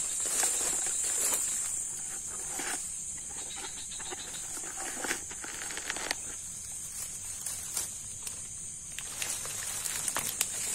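Steady high-pitched chorus of night insects, with scattered clicks and rustles of movement through brush.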